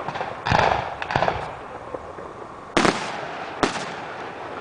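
Aerial firework shells bursting: a loud bang with a short crackle about half a second in, a quick cluster of sharp cracks just after, and two more bangs near the end.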